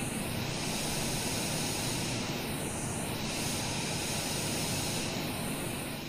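Steady hiss-like noise from a studio monitor speaker, picked up by two microphones mixed together while one microphone is moved toward and away from the speaker. The changing delay between the two microphones causes comb filtering, which makes the tone of the hiss sweep down and back up about three times.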